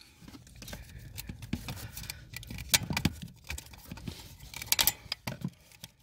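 Handling noise: a run of scattered rustles, scrapes and light clicks, busiest about three seconds in and again near five seconds.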